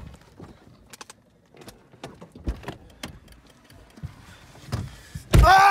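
Scattered clicks, knocks and rustling of someone moving about in a car seat. Near the end, a man suddenly lets out a loud, held cry of pain.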